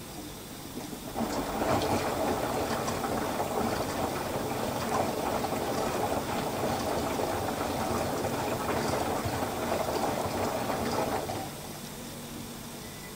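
LG VC2 front-loading washer-dryer turning its drum on the final rinse, tumbling a water-soaked double duvet: water sloshing and splashing for about ten seconds, starting about a second in and stopping abruptly near the end.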